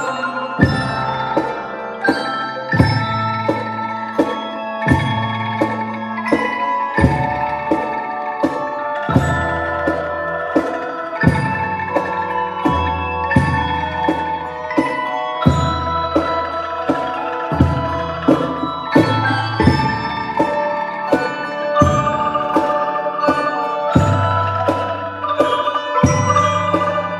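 Percussion ensemble playing marimbas and xylophones struck with mallets: quick ringing pitched notes over a steady low beat about once a second.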